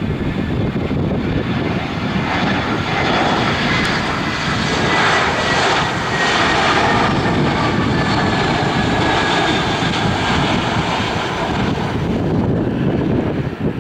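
Airbus A320 jet airliner landing: steady jet engine noise with a faint whine, swelling to its loudest about five to seven seconds in as the aircraft passes close by.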